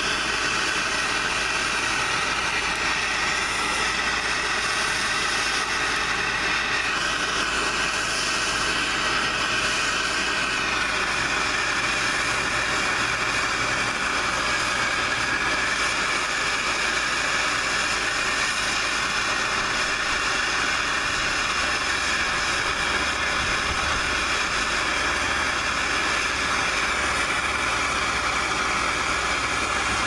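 MAPP gas hand torch burning with a steady hiss, its flame held on the metal body of a padlock.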